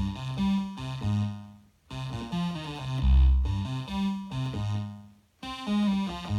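Moog Sub 37 and Moog Minitaur analog synthesizers layered over MIDI, three oscillators sounding together: the Sub 37's sawtooth and saw-square waves plus a sawtooth from the Minitaur. They play a fat bass line of stepping notes in short phrases with brief gaps between them.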